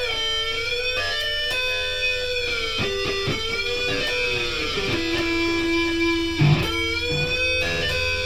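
Guitar music: long held notes that bend and slide in pitch over a steady low hum, with a brief louder accent about six and a half seconds in.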